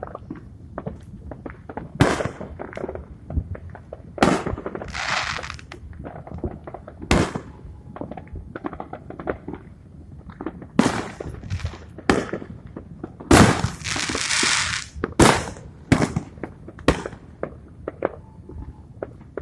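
Fireworks going off: a string of sharp bangs, about a dozen of them, some with a long hissing crackle after them, the loudest crackle starting about two-thirds of the way through.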